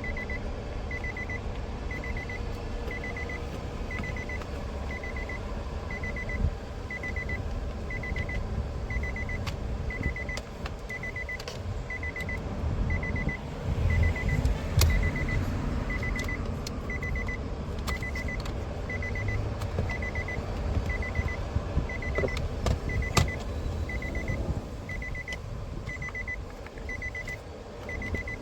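A car's interior warning chime beeping steadily about once a second, over a low rumble, with scattered clicks and knocks from work on the door trim and window switch.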